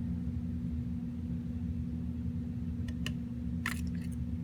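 Steady low background hum, with a few small sharp clicks in the second half as a magnetic screwdriver and small screws tap against a graphics card's metal bracket.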